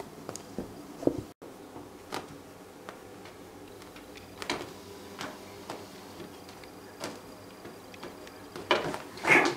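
Cats playing on a carpeted cat tree: scattered soft bumps, scuffles and scratches of paws and bodies against the plush and sisal, with the loudest cluster of bumps near the end.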